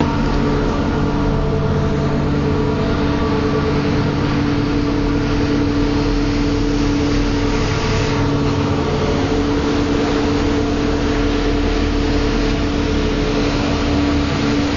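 Steady drone of boat engines with several held tones, under the rush of wake water and wind from a fast ferry underway with a pilot boat running close alongside. The hiss of spray swells briefly about eight seconds in.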